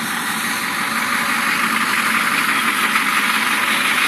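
Caterpillar 3208 V8 diesel in the rear of a school bus idling steadily, growing slightly louder as it is approached.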